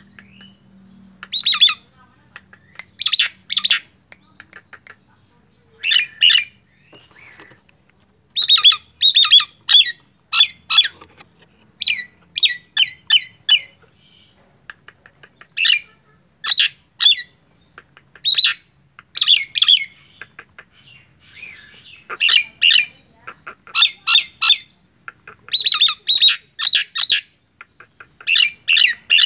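Caged common myna calling: short runs of two to six rapid, harsh chattering notes, repeated over and over with brief pauses between them.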